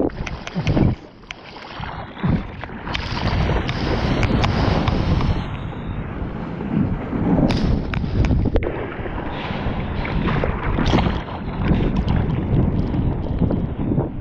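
Ocean whitewater rushing and splashing around a surfboard close to a GoPro, with irregular sharp splashes. About a second in the sound drops and turns muffled while the camera is briefly underwater.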